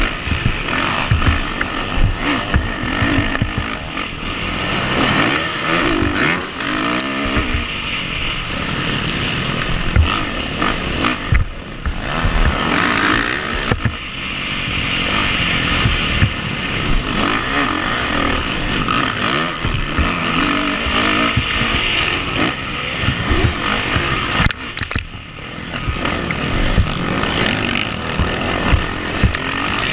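Motocross bike's engine heard from a helmet camera, revving up and down through corners and straights, with wind buffeting the microphone. The throttle drops off briefly about five seconds before the end, then the engine picks up again.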